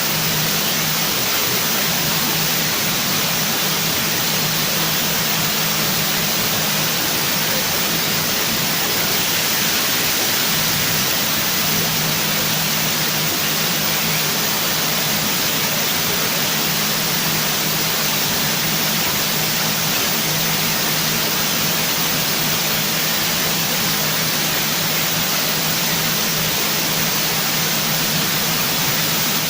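Steady loud hiss that does not change, with a faint low hum underneath.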